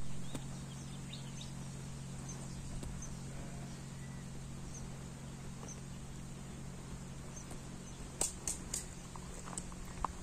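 Quiet outdoor evening ambience by a lake: scattered faint, short high chirps over a steady low hum, with a few sharp clicks about eight seconds in.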